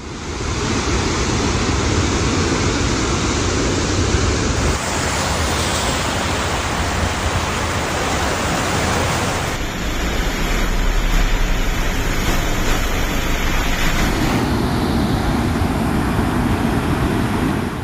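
Loud, steady rushing noise of storm and flood footage: rain, running water and wind, heard in several clips cut one after another about every five seconds.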